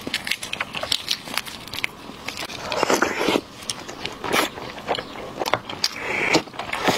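Close-miked eating of a five-spice braised egg: the soft egg squeezed apart by gloved fingers, then bitten into and chewed, with many small sticky clicks.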